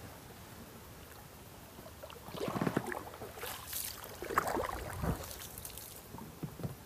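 Water splashing and sloshing, in several irregular bursts from about two to five seconds in, with a couple of faint knocks near the end.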